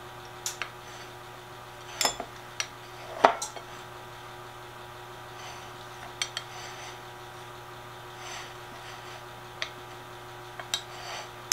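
A metal fork's tines clinking and tapping against a ceramic plate while they press and seal the crimped edge of a pie-crust hand pie. The clicks are scattered and irregular, the loudest about three seconds in, over a faint steady hum.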